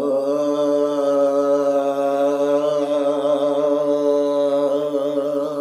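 A man holding one long, steady chanted vocal tone, part of a throat exercise for the thyroid done with a hand on the throat to create warmth there. The tone weakens slightly near the end.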